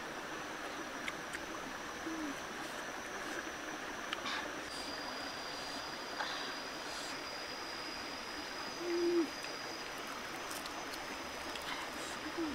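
Steady rush of a rocky stream, with a thin steady high whine above it. Three short low hooting tones come through about two, nine and twelve seconds in, the middle one the loudest and longest.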